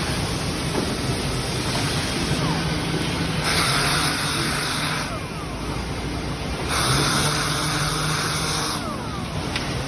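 Wood sanding machine running steadily with a low hum, with a harsh hiss that rises for a second or two at a time, twice.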